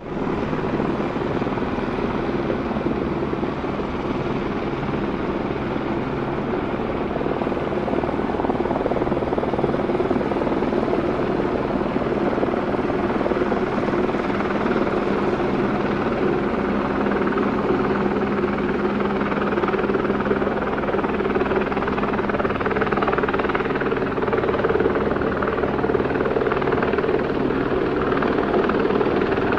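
Two helicopters hovering close by, their rotors and engines running as a steady, dense thrum with several held tones, growing slightly louder over the half minute.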